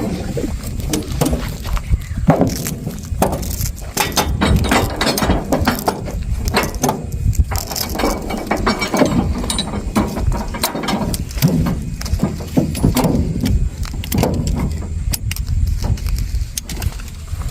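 Irregular metallic clinks and clanks over a steady low rumble.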